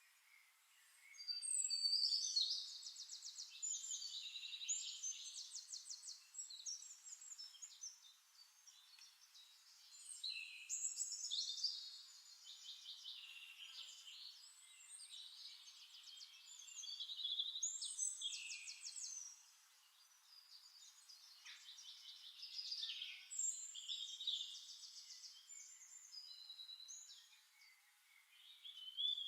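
Songbirds singing long, varied phrases of rapid trills and chirps, in bouts of a few seconds separated by short, quieter gaps.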